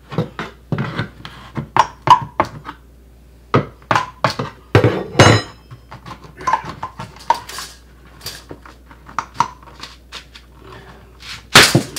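Old wooden kitchen backsplash board being pried and pulled off the wall with a steel pry bar: an irregular string of knocks and clanks of metal and wood against the wall and countertop, some with a short metallic ring, the loudest near the end. The board resists because caulk holds its bottom edge.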